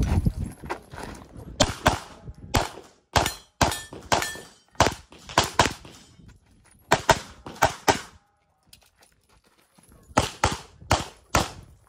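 Walther PDP SF 9mm pistol firing a fast string of shots, mostly in quick pairs, during a Carry Optics stage run. The shooting stops for about two seconds past the middle, then resumes with more quick pairs.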